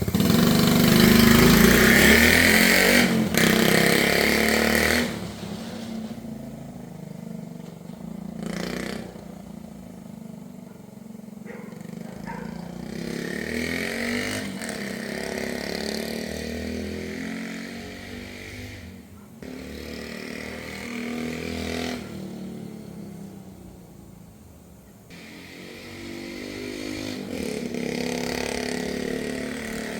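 1970 Honda Z50 mini bike's small single-cylinder four-stroke engine running, loud for about the first five seconds, then quieter and swelling and fading several times as the bike is ridden away and back.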